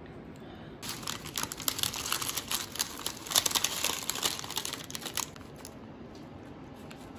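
Paper fast-food packaging, a takeout bag and a burger wrapper, crinkling and rustling as it is handled. The crinkling starts about a second in and stops about five seconds in.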